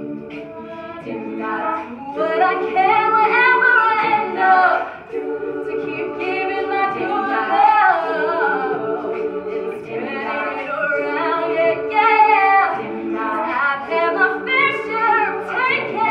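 All-female a cappella group singing in harmony. The backing voices hold steady chords while a lead voice carries the moving melody above them, the whole growing louder about two seconds in.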